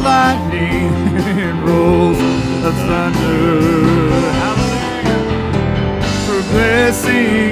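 Live church worship band playing a worship song: voices singing over acoustic guitar and band accompaniment.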